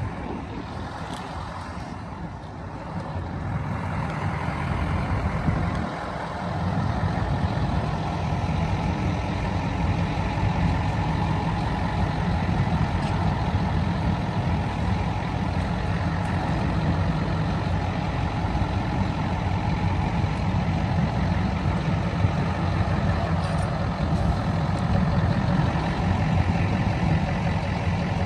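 Heavy diesel engines of a heavy-haul truck and mobile cranes running steadily, a low drone that grows louder about four seconds in.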